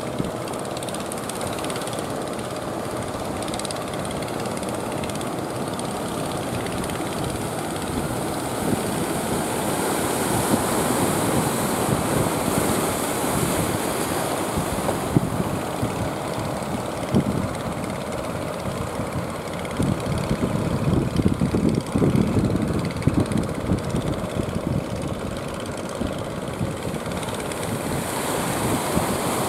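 A boat engine running steadily with a fast, rattling rumble, mixed with wind and water noise. It grows a little louder in the second half.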